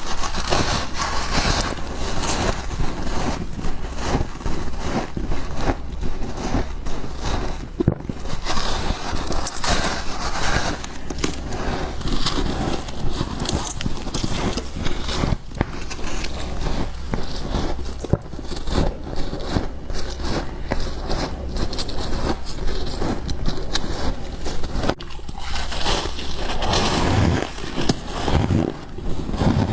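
Frost being bitten and chewed: dense, continuous crunching and crackling of packed ice crystals.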